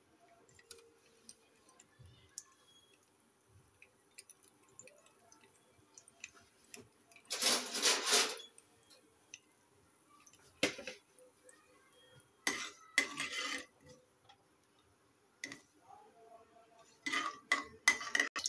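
Metal spoon and aluminium frying pan clattering and scraping over mustard seeds in oil. There is one loud scrape about seven seconds in and a few shorter ones later, then a run of quick clinks near the end as the seeds are stirred.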